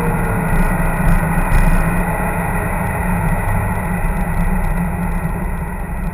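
Steady low rumble of a car's engine and road noise heard from inside the cabin, easing off slightly toward the end.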